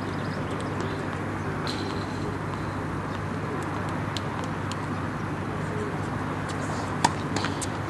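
Steady low outdoor background hum, with scattered faint ticks and one sharp knock about seven seconds in.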